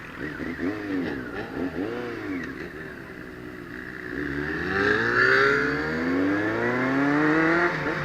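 Inline-four sport motorcycle engine riding on the road. Its revs rise and fall a few times, then climb steadily under acceleration from about halfway through and drop sharply near the end.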